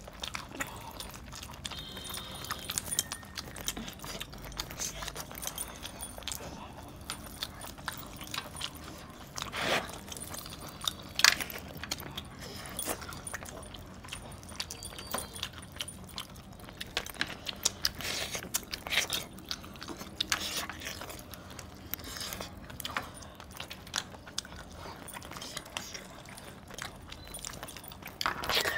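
Eating by hand: metal bracelets, rings and chains clinking and jangling in short, irregular clicks as the hands tear cooked chicken apart on a plate, with faint chewing.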